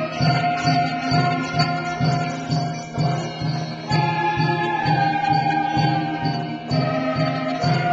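School band playing a piece: held instrumental notes over a steady beat of about three pulses a second, with a high jingling tick keeping time.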